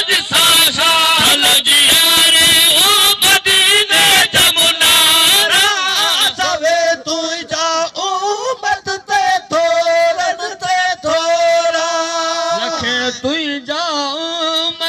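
A man's voice singing a Sindhi naat, devotional Islamic verse, in a chanting melismatic style with gliding ornaments, and drawn-out held notes in the second half.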